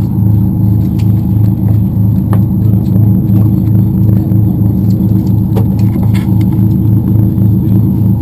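Party boat's engine idling: a loud, steady low rumble that throbs evenly about three times a second, with a few faint clicks over it.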